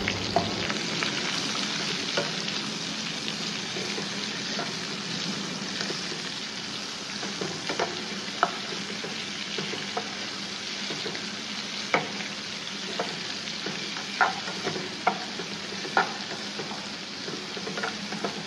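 Sliced onions frying in hot oil with whole spices in a non-stick kadai, a steady sizzle. They are stirred with a perforated metal ladle that scrapes through them and taps sharply against the pan several times in the second half.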